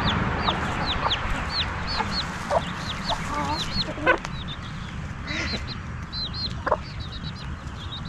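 A newly hatched chick peeping steadily, short high falling cheeps two or three a second, while hens give a few short low clucks.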